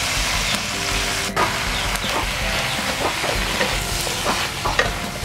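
Vegetables stir-frying in hot oil, sizzling steadily, with the sounds of stirring and a single knock about a second in.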